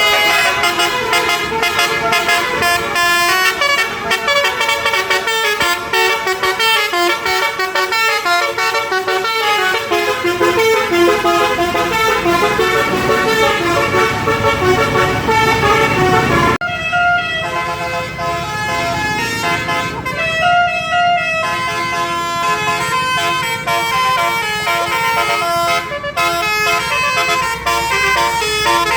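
Basuri musical bus horns (klakson telolet) playing quick melodic tunes, many tones sounding at once. The sound breaks off abruptly about 17 seconds in and then carries on.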